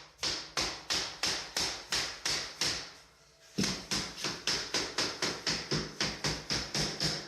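Hammer strikes, about three a second, in two even runs broken by a short pause about three seconds in.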